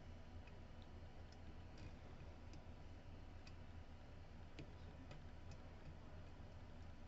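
Faint, scattered clicks of lock picks working the pins inside a DOM RS8 lock cylinder, over a low steady hum.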